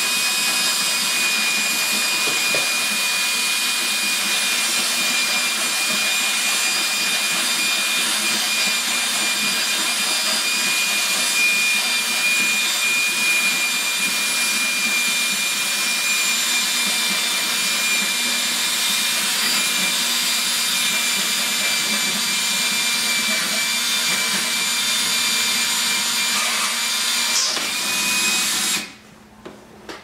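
Ridgid cordless drill running steadily under load, boring a hole through an ATV's plastic body panel, with a steady high whine over the motor noise. It stops suddenly near the end.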